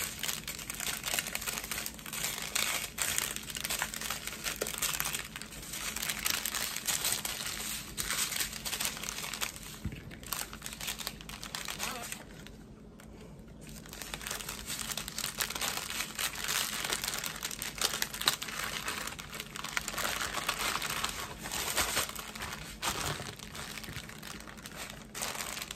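Small plastic packets of diamond-painting drills crinkling as they are handled and packed into a zip-top plastic storage bag, with a short lull about halfway through.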